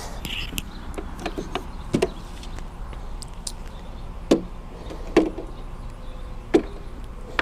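Grass-catcher bag frame being fitted onto the rear of a walk-behind lawn mower: scattered plastic-and-metal knocks and rattles as the frame and the discharge flap bump into place, four of them sharper than the rest.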